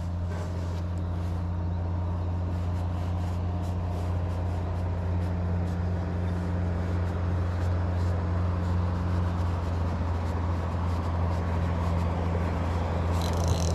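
Steady low hum of an engine running at constant speed, holding the same pitch throughout, with faint scattered ticks above it.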